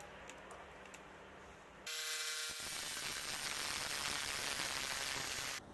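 Electric jigsaw starting up about two seconds in and sawing into an aluminum square tube with a short, cut-down metal-cutting blade: a loud, hissing buzz of the blade in the metal that stops abruptly near the end.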